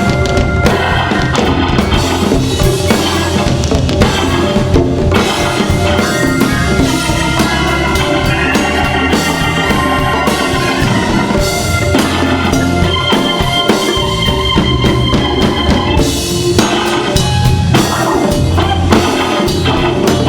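Live band music: a Hammond organ playing over a drum kit keeping a steady groove, with held organ chords sustained over the beat.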